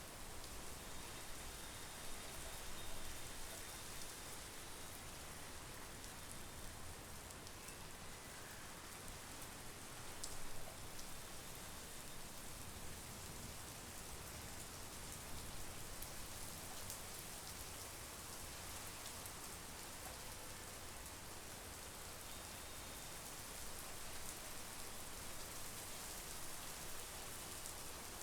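Steady monsoon rain falling, a continuous hiss of drops with scattered sharper drop ticks and a couple of brief louder spatters, about three and ten seconds in.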